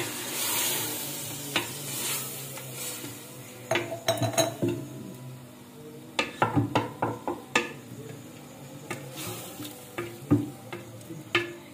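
Wooden spoon stirring keema and potato cubes in watery gravy in an aluminium pressure cooker, scraping and knocking against the pot in several clusters of sharp taps, with the hot pan sizzling underneath.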